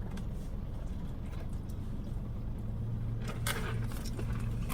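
Steady low hum of a car heard from inside the cabin, with a brief click about three and a half seconds in.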